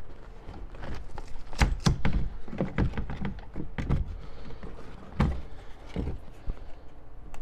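Irregular hollow knocks and thumps of a factory mid-range door speaker's plastic frame being wiggled and pried loose from a pickup truck's metal inner door panel, its mounting bolts already removed.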